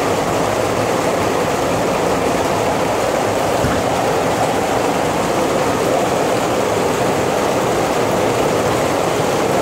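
Rain falling steadily during a thunderstorm: an even rushing noise with no breaks.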